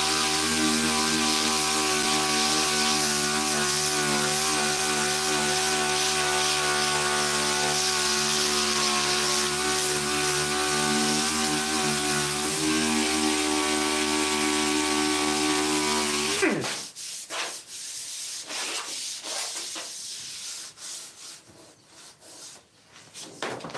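DA (dual-action) sander running steadily on body filler, then switched off about 16 seconds in, its pitch dropping as it winds down. Quieter, irregular scuffing and rubbing follow, and the sander starts up again at the very end.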